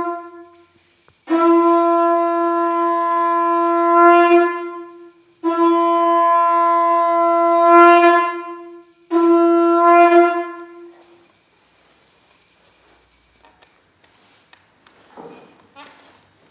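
Conch shell (shankha) blown in long, steady single-note blasts: the end of one, then three more of two to three seconds each, the last dying away a little past the middle.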